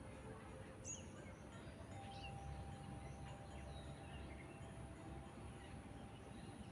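A few short, scattered whistled notes from Oriental magpie-robins calling, faint over a steady low background rumble.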